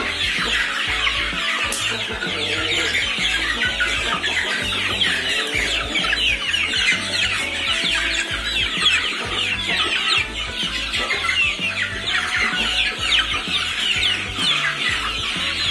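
A flock of young ayam kampung super chickens calling constantly, many short, high, falling calls overlapping, over background music with a steady bass beat.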